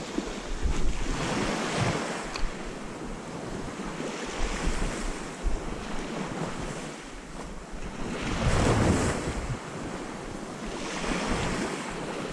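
Sea waves washing in on the shore, with wind buffeting the microphone; a bigger wave surges in about eight and a half seconds in, and another smaller one near the end.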